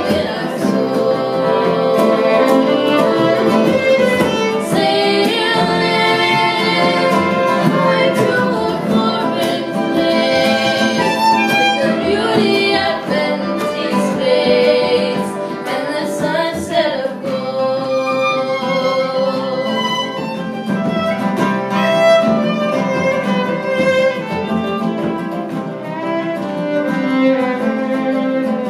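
Fiddle playing a lively melody over strummed acoustic guitar accompaniment: an instrumental passage of a folk song.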